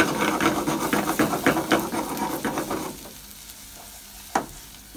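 A spatula stirring and scraping minced onion as it sizzles in oil in a saucepan, with rapid scraping strokes for about three seconds, then quieter frying and a single knock near the end.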